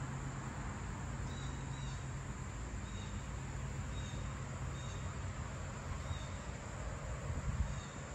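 Summer outdoor ambience: a steady high drone of insects, with short high chirps repeating about once a second, over a low rumble that swells near the end.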